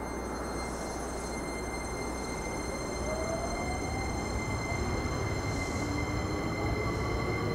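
JR Kyushu 885 series electric express train pulling in along the platform: a steady rumble that grows a little louder about three seconds in, with faint whining tones gliding upward.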